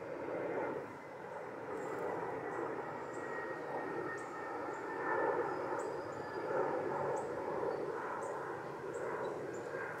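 Steady drone of distant engine noise, with short, high bird chips repeating about once a second.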